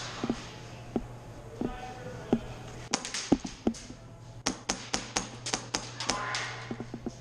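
Airsoft rifle firing single shots as sharp clicks, a few spaced out at first, then a quicker string of about four a second from about four and a half seconds in.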